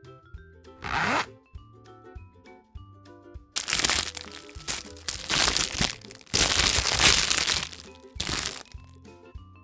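Crinkling and cracking of a surprise egg's wrapper and shell being unwrapped and opened: a short burst about a second in, then a longer stretch from about three and a half seconds until near the end. Light mallet-percussion background music plays under it.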